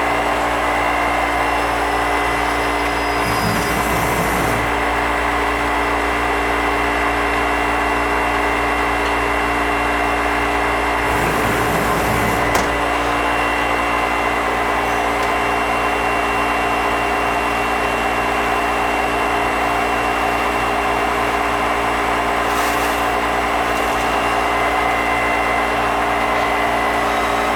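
A Nakamura-Tome Super NTX CNC twin-spindle multi-tasking lathe running, with a steady machine hum carrying several steady tones. Short rushing bursts come three times, about 3 seconds in, around 11 seconds in, and near 23 seconds in. There is a single click at about 12.6 seconds.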